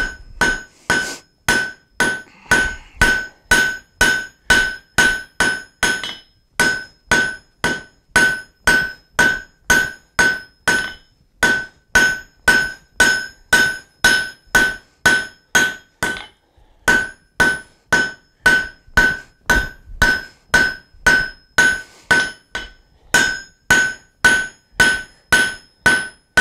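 Blacksmith's hand hammer striking a red-hot flat steel bar on an anvil, drawing out a taper: steady blows about two to three a second, each with a clear ringing note from the anvil, broken by a few brief pauses.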